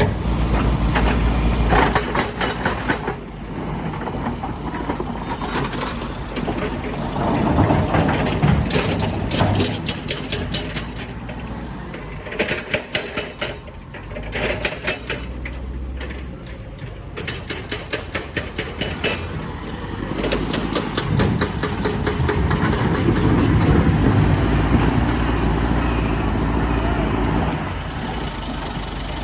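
Heavy diesel machinery running, with several bursts of rapid metallic clattering over the engine's rumble.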